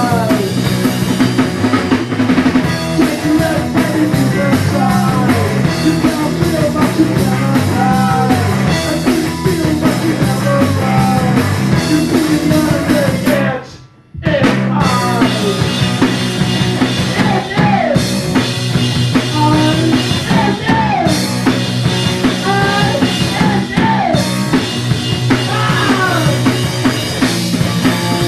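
Grunge rock song playing, led by drum kit and guitar. About halfway through, the music stops dead for under a second, then comes back in.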